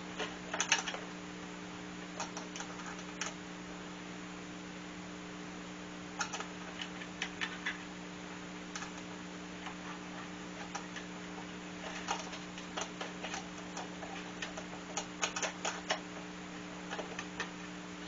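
Scattered light clicks and taps in short clusters, as of small parts such as a shield and wing nuts being handled and fitted, over a steady low hum.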